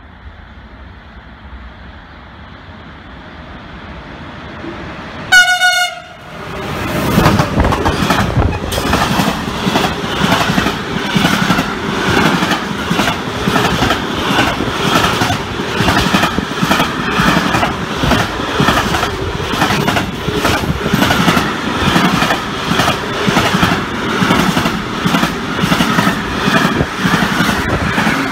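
A train approaches with a rising rumble and sounds one short horn blast about five seconds in. It then passes close by, loud and steady, with a rapid rhythmic clicking of wheels over the rail joints.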